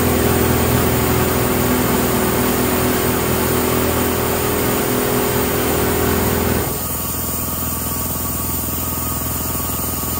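Two high-pressure air compressors running together: the 220-volt single-phase MCH6 running with a steady hum over the quieter 115-volt MCH3. About six and a half seconds in, the louder unit is switched off and the sound drops to the MCH3 running on its own.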